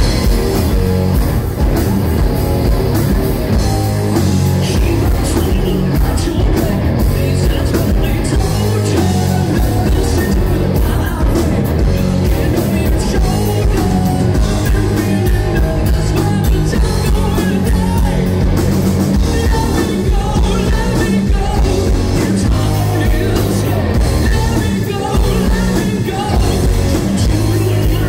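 Live rock band playing: two electric guitars, electric bass and drums, with a lead singer singing into a microphone.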